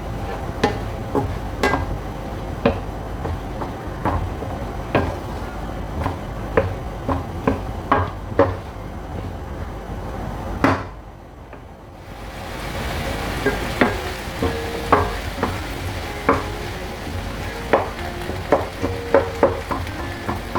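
A spatula scraping and knocking in a non-stick frying pan while minced beef, pepper and onion fry with a steady sizzle. The sound drops away briefly a little past the middle, then resumes with the sizzle more prominent.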